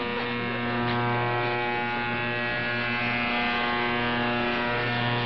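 Very loud, steady buzzing on the 11935 kHz shortwave frequency of Republic of Yemen Radio, played through the speaker of a Qodosen SR-286 portable receiver. The buzzer covers the station, and the listener takes it for a deliberate jammer rather than a broken transmitter.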